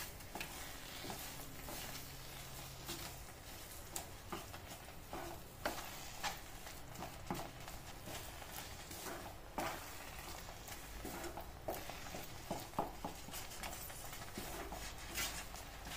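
Wooden spatula stirring and scraping rava kesari around a pan, with irregular soft knocks as it strikes the pan, while the just-added sugar melts into the semolina.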